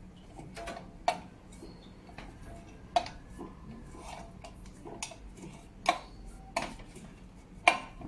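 About eight sharp metallic clicks and clinks at uneven intervals, the last near the end the loudest: a spanner working the centre bolt of the direct-drive motor rotor on an LG washing machine as it goes back on.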